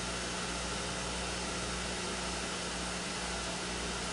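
Surface grinder running steadily, its spinning grinding wheel and spindle motor giving an even whir and hiss over a low hum. The wheel is being eased down toward the work and has not yet touched it.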